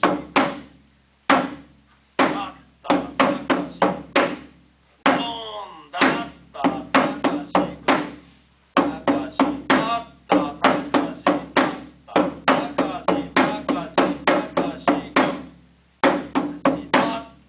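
Taiko drum struck hard with wooden sticks in fast rhythmic runs, the hide head ringing after each hit, with short pauses between phrases. A brief shouted call comes about five seconds in.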